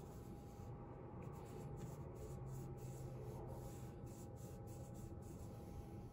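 Faint rubbing of a fingertip over paper, blending vine charcoal and black pastel into a drawing's shadow.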